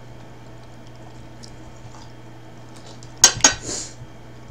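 Metal fork on a ceramic dinner plate: two sharp clinks about three seconds in, then a short scrape as it cuts into lasagna.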